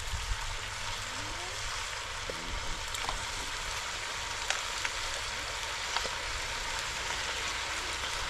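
Chicken and tomato frying in a pot over wood embers: a steady sizzling hiss with a few faint pops.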